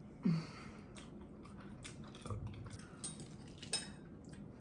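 Close-up chewing and biting while eating ribs, with many small wet mouth clicks and smacks. There is a short low falling vocal sound near the start and a sharp click about three and three-quarter seconds in.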